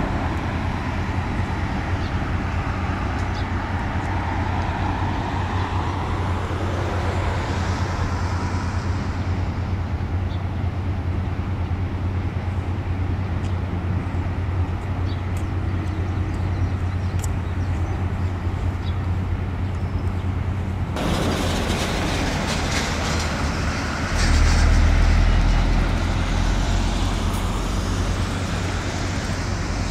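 A steady low engine rumble with a hum under outdoor background noise. About 24 s in, a deeper, louder rumble swells for a couple of seconds, then eases.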